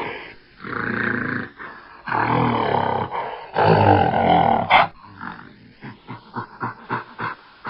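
Gorilla roaring in three long, rough calls, followed by a sharp snap and then a rapid run of short, quick sounds.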